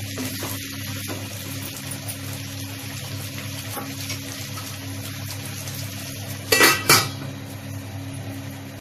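Stuffed brinjal and potato pieces frying in oil in a pan with a steady sizzle. About six and a half seconds in comes a short, loud metallic clatter against the pan.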